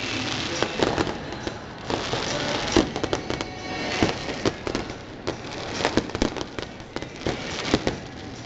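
Aerial fireworks going off in rapid, irregular succession: many sharp bangs over a continuous crackle of glittering stars.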